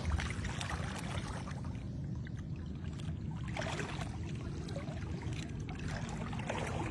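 Shallow sea water sloshing and splashing around a person's legs as he wades, with a few brief splashes over a steady low rumble.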